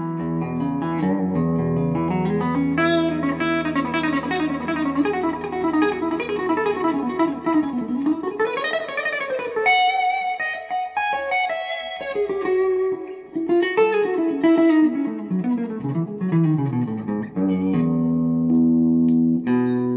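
Fender American Deluxe Telecaster played through a DV Mark Little 40 amp, improvising in E: quick single-note lead runs over ringing low notes, with a slide up and back down about halfway through and descending runs near the end.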